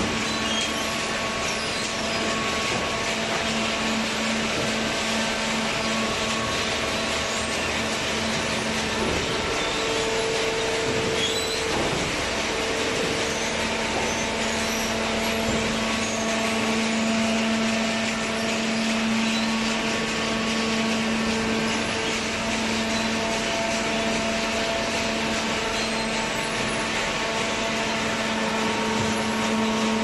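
Horizontal cardboard baler and its feed conveyor running: a steady machine hum from the electric motor and hydraulic pump, with a few held tones over a constant rushing noise.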